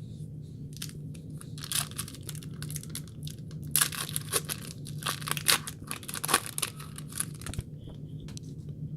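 A trading card pack's wrapper being torn open and crinkled by hand, a dense run of crackling that is loudest in the middle and stops about a second before the end.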